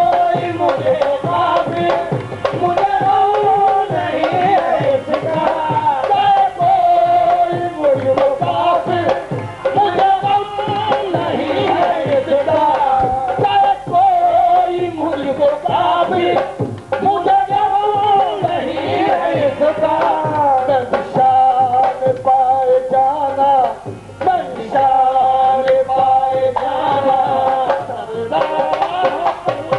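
Qawwali music: tabla drumming in a quick, steady rhythm under a harmonium and sung melody.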